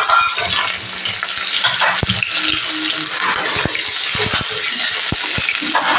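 Chunks of pointed gourd, potato and squash sizzling in hot oil in a kadai while a metal spatula stirs and scrapes them. A steady frying hiss runs under scattered clinks and knocks of the spatula against the pan.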